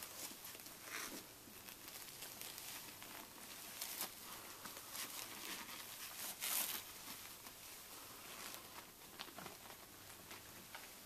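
Faint rustling and crinkling of puppy pads as Samoyed puppies shift in their sleep, with a brief louder crinkle about six and a half seconds in.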